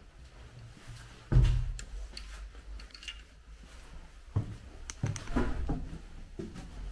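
A heavy thump about a second in, then a run of lighter knocks and clicks near the end.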